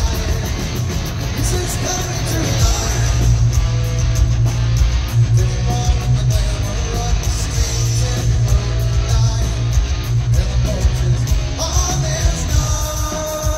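Heavy metal band playing live: distorted electric guitars, bass and drums, with the singer's vocals over them.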